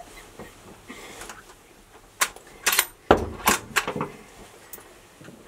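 Sharp clicks and knocks from a hunting rifle being worked in a small wooden box stand: a cluster of them between about two and four seconds in, the loudest and deepest near the middle.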